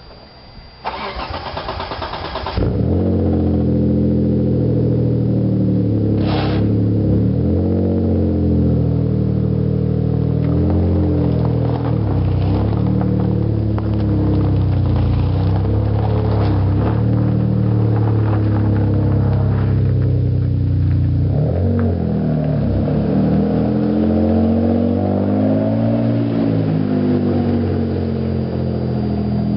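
Mitsubishi 3000GT VR4's twin-turbo V6 cranking on the starter for about a second and a half, then catching and running, revved up and down several times. The owner suspects a spun bearing behind a knock that comes on start-up and between 3000 and 3500 rpm.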